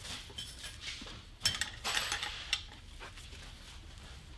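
A steel wrench clinking on the hex nut and washer of a wedge anchor as the nut is tightened down against a board: a few sharp metallic clinks over the first two and a half seconds, the loudest about a second and a half in. Tightening the nut pulls the anchor's wedge up into its sleeve, expanding it in the concrete.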